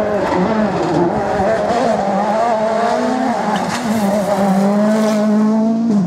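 Rally car engine running hard at speed, its pitch rising and dropping with throttle and gear changes, then holding a steadier, slowly climbing note over the last couple of seconds.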